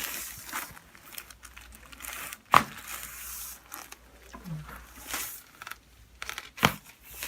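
A patient shifting and turning over on a chiropractic treatment table, with rustling and crinkling of the table cover. Two sharp snaps cut through it, the louder about two and a half seconds in and another near the end.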